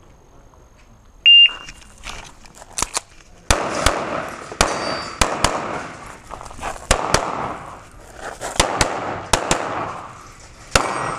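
An electronic shot-timer start beep about a second in, then a string of about fourteen pistol shots, mostly fired in quick pairs, as the shooter runs an IPSC stage.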